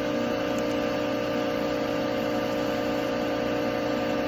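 Steady hum of an Accurpress hydraulic press brake idling, its pump motor running with a constant low drone.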